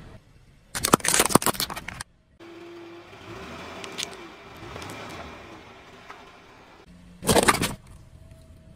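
A car tyre rolling over and crushing objects on asphalt: a loud crackling crunch lasting about a second, starting just under a second in, and a shorter crunch near the end. Between them, a quieter stretch with a sharp crack about four seconds in as the tyre presses down on a plastic object.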